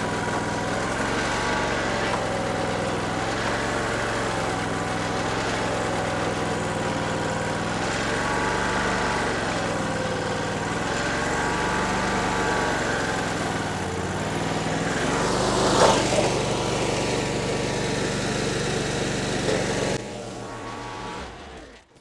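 Chinese mini skid steer's engine running under hydraulic load while lifting a heavy pallet near its maximum capacity. Its pitch sags and recovers several times as the lift arms take the weight. A brief loud noise comes about 16 seconds in, and the engine shuts off about 20 seconds in.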